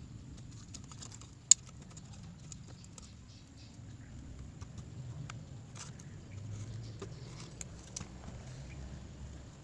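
Scattered light clicks and taps of small tools and phone parts being handled during a phone screen repair, with one sharp click about a second and a half in, over a low steady hum.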